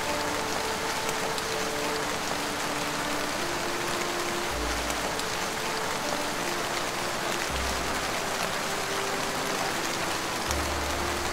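Steady rain hiss under soft ambient music: held synth-pad notes that shift every second or two, with a deep bass note coming in three times.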